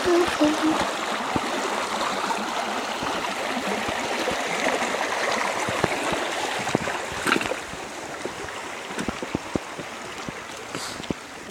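Shallow river water running over rocks, a steady rush that grows quieter about seven or eight seconds in, with scattered small knocks of footsteps on stones.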